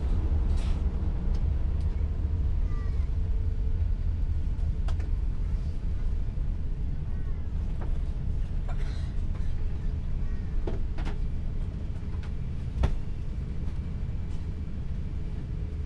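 Airbus A350 cabin noise while taxiing after landing: a steady low rumble of the engines and the rolling gear. A few small clicks and faint squeaks are scattered through it, with a single thump about thirteen seconds in.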